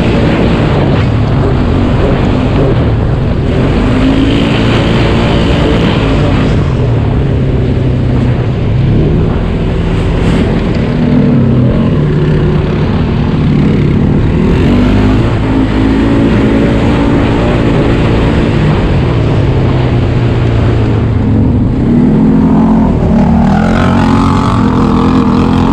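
Off-road vehicle's engine running hard and revving up and down again and again as it is driven, its pitch climbing and dropping several times.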